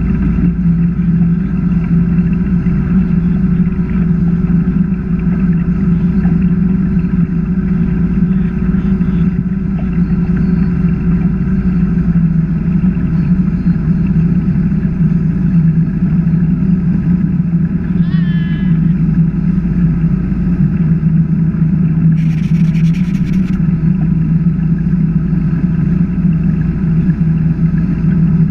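21-foot Chaparral H2O bowrider's engine running steadily at cruising speed, a constant low drone mixed with the rush of water and wind as the hull runs across the lake.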